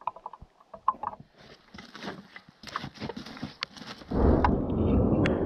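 Faint scattered ticks and footsteps, then about four seconds in a loud, deep rumble of thunder breaks in and keeps rolling.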